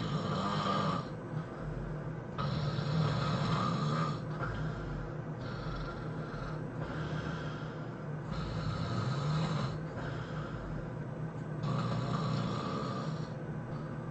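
A person snoring in sleep: five noisy, rasping snores about three seconds apart, each with a low buzz beneath.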